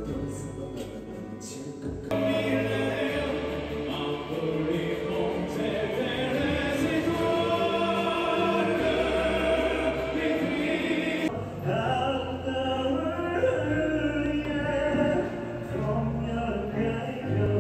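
Male vocal group singing live on stage, heard from the audience. The voices take over about two seconds in, and the song jumps to another passage about eleven seconds in.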